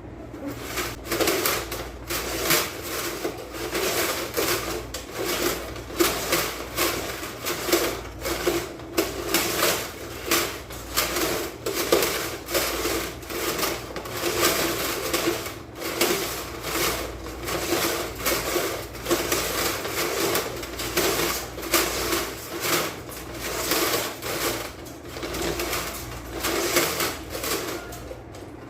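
Steel fish tape rasping and rattling as it is pushed by hand into a conduit in repeated short strokes, to pull a fiber optic cable through.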